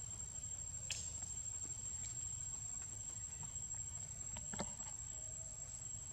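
Steady high insect trill, one thin unbroken tone, over a low rumble, with a faint click about a second in and another about four and a half seconds in.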